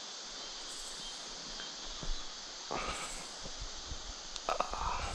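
Steady high hiss of an evening insect chorus. From about two seconds in it is broken by a few knocks and rustles from the camera being handled and moved.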